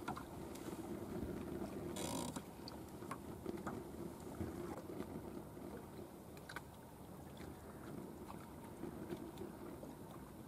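Faint steady wind and water noise around a small fishing boat, with scattered light clicks and a short rushing noise about two seconds in.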